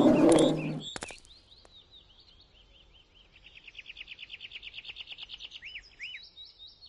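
A bear growling, ending under a second in with a click. Then birds chirp over faint forest ambience: a fast, even trill, then two short rising-and-falling notes.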